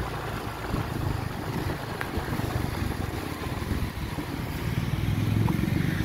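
Motorcycle engine running over a low, uneven rumble. The engine gets louder near the end.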